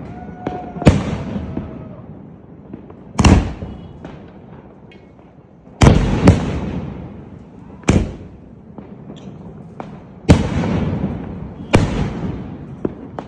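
Aerial shells from a Sony Fireworks '21st Century' 24-shot cake bursting one after another. There are about eight loud bangs at uneven gaps of half a second to two and a half seconds, each trailing off over a second or two.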